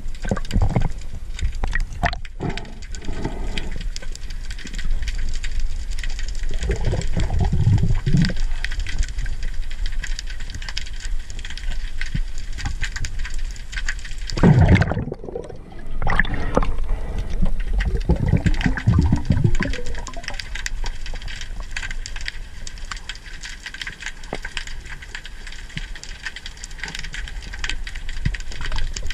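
Underwater ambience heard through a diving camera: a steady crackle of fine clicks over a hiss, with several louder, low rushes of moving water, the strongest about halfway through.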